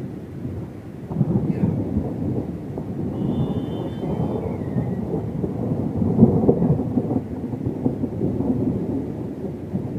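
Thunder rumbling, swelling about a second in and rolling on in uneven waves.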